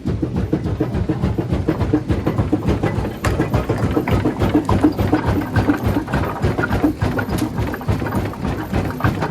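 Rock crusher running, with a continuous low rumble and a dense, irregular clatter of rocks knocking as they are crushed.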